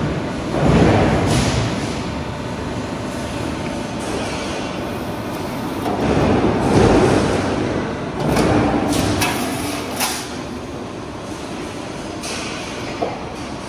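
Guillotine shear for sheet metal at work: continuous machine noise with several swells of metal sliding and scraping, and a few sharp clanks in the second half.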